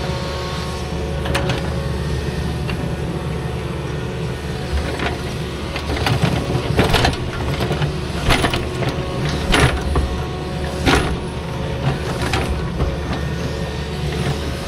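Diesel engine of heavy earthmoving equipment running steadily, with several sharp metallic clanks and knocks in the second half.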